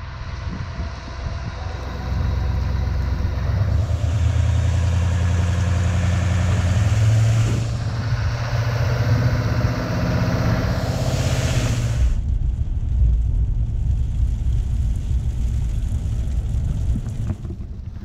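Pickup truck towing a loaded gooseneck livestock trailer on a wet road: the engine climbs in pitch twice as it accelerates, over a hiss of tyres on wet pavement. About two-thirds in it changes suddenly to a steadier, duller low rumble.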